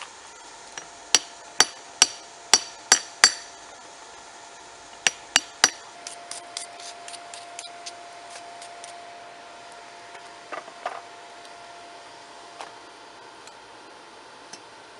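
A blunt old hatchet striking the steel of a railroad-rail anvil, each blow ringing metal on metal. Six hard blows come in quick succession, then three more about five seconds in, then a run of lighter ringing taps. A steady hum runs underneath.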